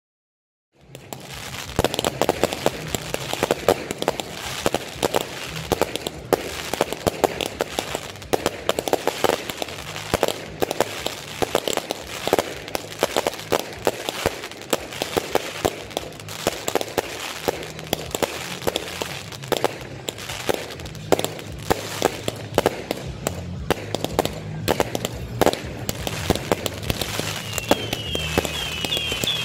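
Fireworks display: dense, rapid crackling and popping of bursting shells, starting about a second in. A run of short whistles comes near the end.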